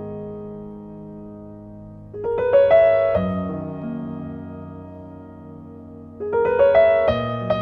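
Background piano music: slow, gentle sustained chords, with a quick run of notes climbing into a new chord about two seconds in and again near the end.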